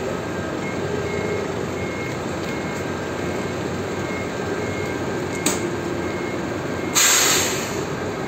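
Forklift engine running while it reverses with a loaded pallet, its reversing alarm sounding a string of short, evenly spaced high beeps. A sharp click comes about five and a half seconds in, and a short, loud hiss about seven seconds in.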